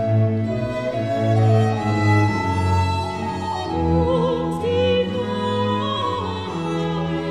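Baroque sacred cantata performed live: a small string ensemble with organ continuo plays held chords, and a singing voice with vibrato comes in about halfway through.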